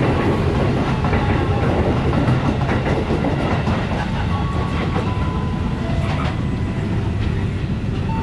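Train rolling past close by, a steady low rumble with the wheels clicking over rail joints.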